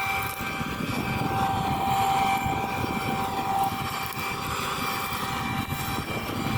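Harvest machinery running: a steady engine drone with a constant high whine over it.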